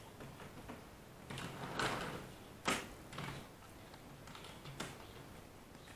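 A few short knocks and scrapes, with the sharpest knock a little under three seconds in.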